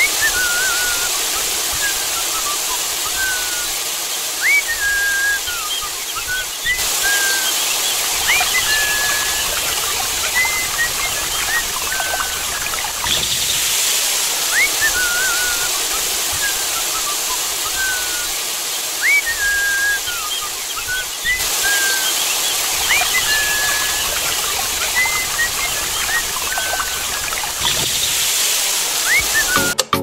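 Birds chirping and whistling over a steady rushing hiss like running water. The same run of calls comes round again about every fifteen seconds, as in a looped nature-ambience track.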